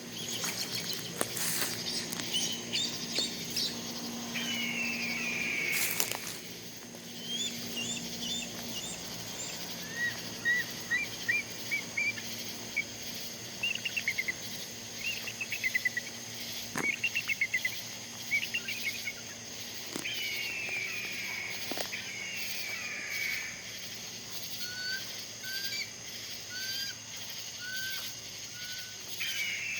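Bird calls from the treetops: harsh, falling calls about a second long, runs of rapid chattering notes and a series of short chirps, over steady insect chirring.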